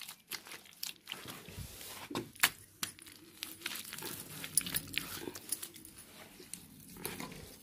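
Wet mud mixed with straw squelching and slapping under a bare hand as it is scooped from a plastic tub and pressed onto a wall, a run of short wet smacks with the sharpest about two and a half seconds in.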